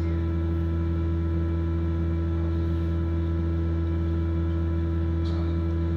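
Genesis Hovabator 1588 incubator's circulating-air fan motor running, a steady low hum with several fixed overtones.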